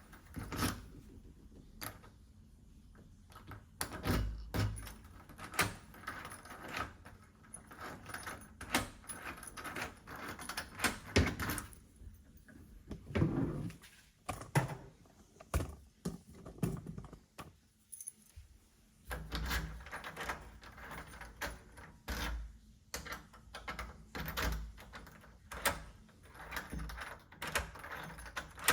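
Keys jangling and scraping as they are tried in a newly installed deadbolt lock, with many irregular clicks and knocks from the lock and door.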